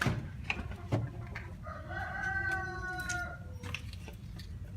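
A few light clicks, then a drawn-out pitched call or squeal lasting about a second and a half, falling slightly in pitch.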